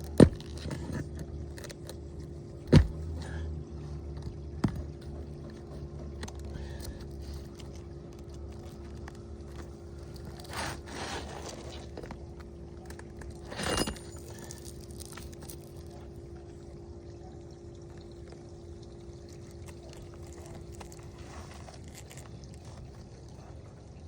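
Roofing tools working nails and a damaged shingle loose: three sharp knocks in the first few seconds, then two short bursts of scraping, over a steady low hum.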